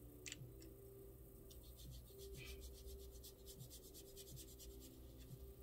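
Near silence: a water brush faintly rubbing watercolor paint onto paper, with a few soft clicks.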